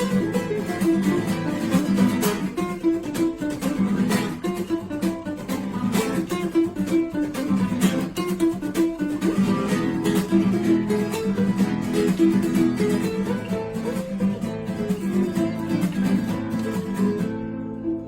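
Background music: fast strummed and plucked acoustic guitar in a flamenco style.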